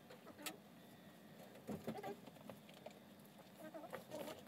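Faint rustling of clothing and a few light ticks and knocks as a person moves about a small room, handling clothes while getting dressed.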